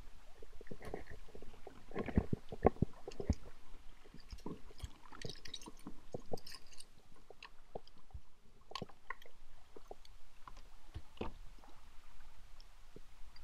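Kayak paddling: small irregular splashes and drips of water, with soft clicks and knocks, most of them in the first few seconds and a few more about three-quarters through.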